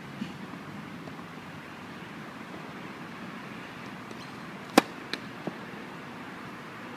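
Tennis serve: a faint knock of the ball being bounced, then a sharp, loud crack of the racket striking the ball, followed within the next second by two fainter knocks as the ball lands and is hit back. A steady outdoor hiss sits underneath.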